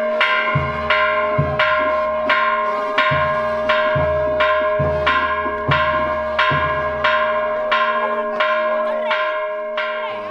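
Church bells rung in a quick, even peal of about two strikes a second, each strike ringing on over the next. A deeper bell sounds on roughly every other beat.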